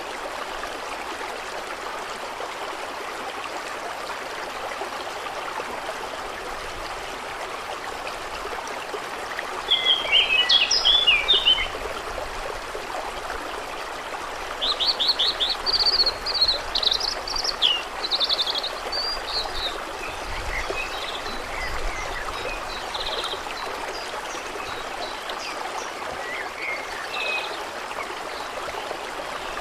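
Steady rush of running water with birds singing over it: a loud burst of song about ten seconds in, a longer run of chirps and trills a few seconds later, then fainter scattered calls.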